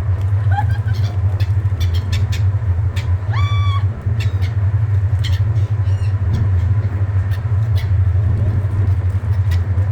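Seagulls calling over a steady low hum. One clear, drawn-out gull call comes about three and a half seconds in, with shorter calls and scattered sharp clicks around it.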